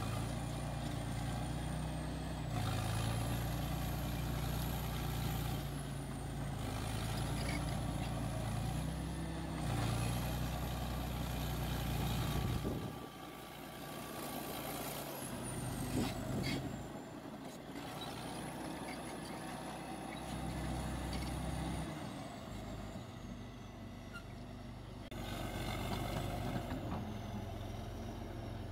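Caterpillar D8K bulldozer working, its diesel engine loading and easing off every few seconds, with a high whine rising and falling along with it. A sharp clank comes about halfway through.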